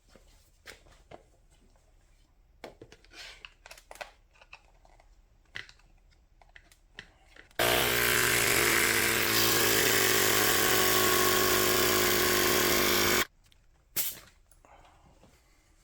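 Small electric tire inflator running steadily for about five and a half seconds, pumping up a stroller wheel's new inner tube; it starts and cuts off abruptly. Before it, faint clicks and handling sounds as the pump is fitted to the valve stem.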